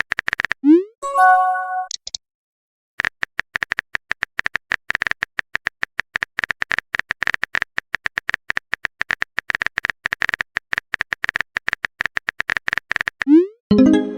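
Chat-app sound effects. A rising pop and a short chime sound about a second in. After a brief pause, rapid typing clicks run for about ten seconds, and another rising pop and chime come near the end.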